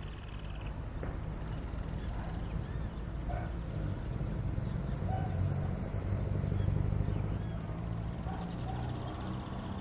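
Outdoor ambience: a steady low rumble that swells around the middle, a high thin tone repeating in short pulses about once a second, and a few faint short animal calls.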